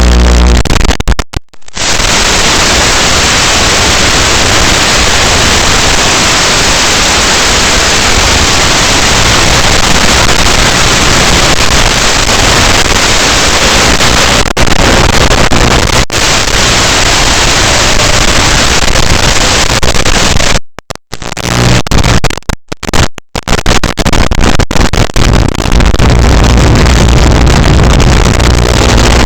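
Loud, steady hiss of noise without any pitch, cutting out to silence briefly about a second and a half in, and again in several short gaps around twenty-one to twenty-three seconds.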